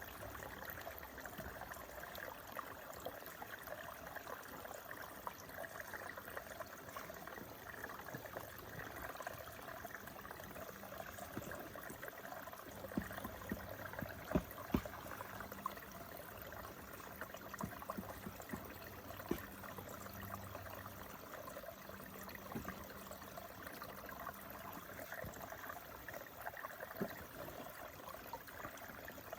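Faint, steady rush of running water, with a few brief knocks about halfway through.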